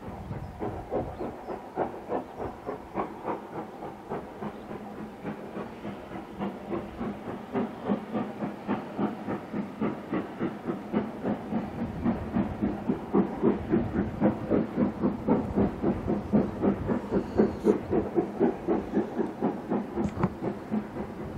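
Steam locomotive working a train, its exhaust beats coming in a quick, regular rhythm and growing steadily louder as it approaches.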